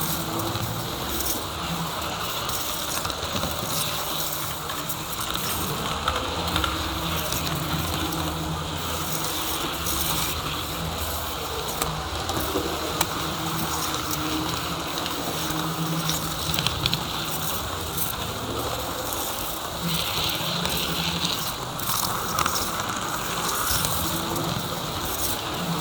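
HO-scale model train running on the track: a steady electric motor hum and wheel rattle, with scattered clicks from the wheels on the rails.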